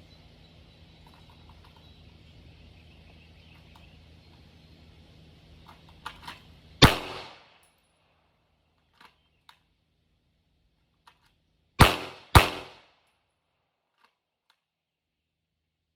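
Three 9mm pistol shots from a Glock 19: one about seven seconds in, then a pair about half a second apart near twelve seconds, each a sharp crack with a short echo.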